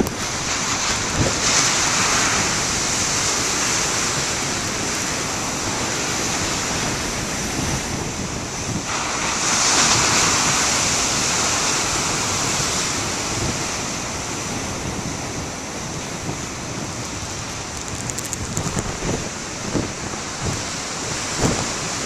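Big ocean waves breaking on a rocky shore: a continuous rush of surf and churning foam, swelling loudest about ten seconds in as a large wave crashes into whitewater against the rocks.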